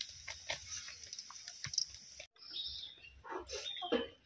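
Hand squishing and kneading fish roe into flour for pakora batter in a metal bowl: a run of short, wet squelching clicks. The sound cuts off abruptly about two seconds in, and a few short voice-like calls follow near the end.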